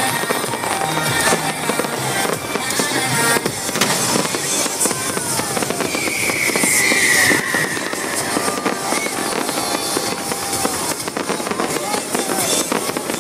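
Fireworks crackling and popping in quick succession under loud music and crowd voices. A shrill, slightly falling whistle cuts through for over a second about six seconds in.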